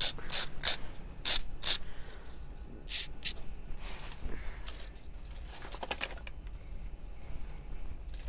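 Nail file rasping along the edge of a small scrapbook-paper-covered cutout, sanding away the excess paper: several quick scratchy strokes in the first two seconds, two more about three seconds in, then only faint handling noises.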